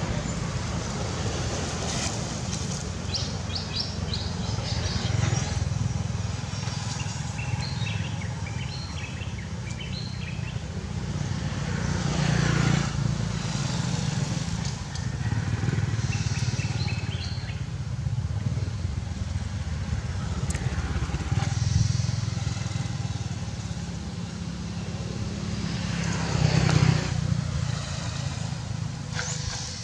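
Outdoor ambience: a steady low rumble with small bird chirps in scattered clusters, a few seconds in and again around the middle.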